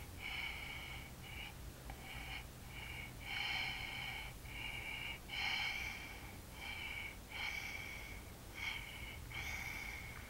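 A baby snoring: short, snuffly, slightly whistling breaths, about one a second.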